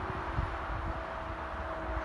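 Wind buffeting the microphone, with a stronger gust about half a second in, and leaves rustling in the hedge beside the line. A faint steady hum runs underneath.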